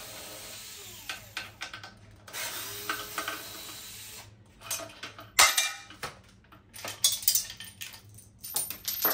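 Cordless drill-driver spinning out the hex bolts of a handlebar clamp in two steady runs, one in the first second and one from about two to four seconds in. Sharp metal clinks and clatter follow as the loose bolts and clamp pieces are handled.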